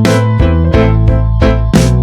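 Loud upbeat background music led by keyboard notes over a steady bass, with a regular beat.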